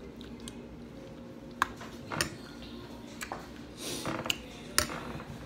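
Metal spoon clinking and scraping against a glass bowl of oatmeal, several short sharp clinks spread across a few seconds, between mouthfuls.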